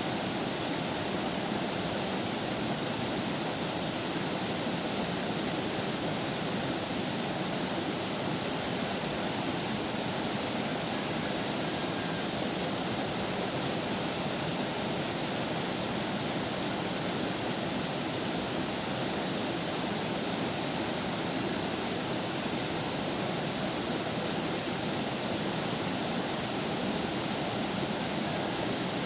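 River water flowing over rocks, a steady, unbroken rushing.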